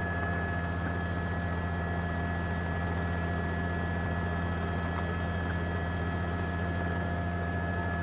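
News helicopter in flight, heard through the open mic on board: a steady low drone with a few thin, steady whining tones above it.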